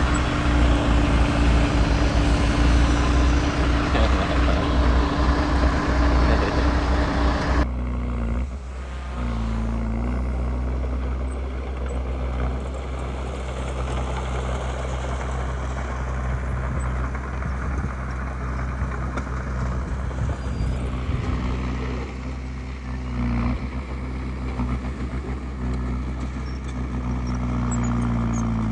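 Heavy diesel engine of earthmoving machinery running steadily under load with loud mechanical noise, cutting off abruptly about eight seconds in to a quieter engine sound. Near the end the engine's pitch rises as it revs up.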